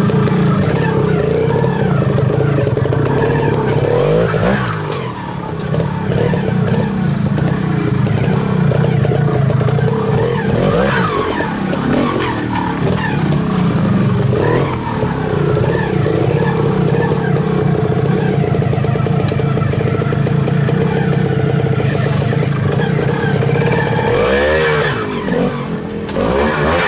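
Classic trial motorcycle engine running at low revs while the bike is ridden slowly over rocks, with throttle blips that rise and fall in pitch several times, most plainly near the end.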